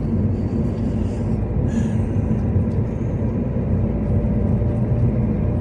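Steady low rumble of a car driving, its engine and road noise running evenly.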